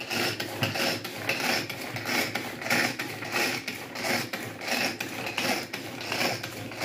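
Tupperware Turbo Chef pull-cord chopper worked with repeated pulls, about two a second, its gear mechanism ratcheting with each pull as the blades spin through detergent and water to clean them.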